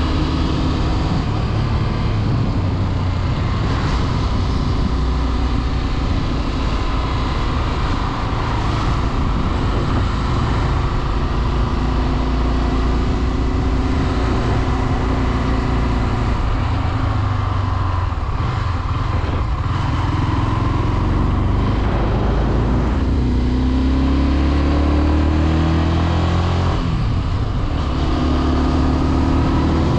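Low-displacement motorcycle engine running under way, its pitch rising as it accelerates and dropping back at each gear change, most clearly in the second half.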